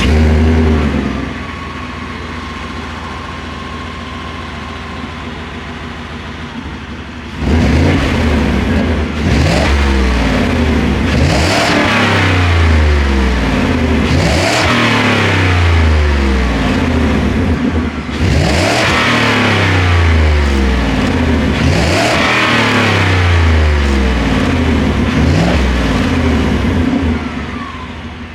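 Ford 5.0 L Coyote V8 through the stock exhaust of a 2023 F-150, warm-started, settling from its start flare to a steady idle, then from about seven seconds in revved repeatedly, the pitch climbing and falling with each of several revs before it drops back to idle near the end.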